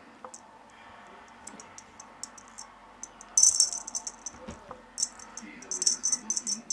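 Light jingling and rattling of a cat wand toy as kittens bat and grab at it, in short bursts, loudest about halfway through and again near the end.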